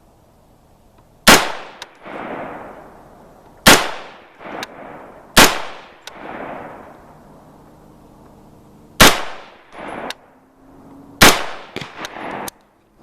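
AR-15 rifle firing .223 ammunition, five single shots spaced two to four seconds apart, each crack followed by a rolling echo. The semi-automatic action is cycling without problems during a function test.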